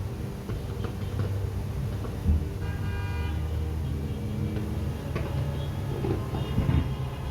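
Fireworks booming, with a sharp bang about two seconds in over a steady low rumble, while horns sound in held tones around three seconds in and again near the end.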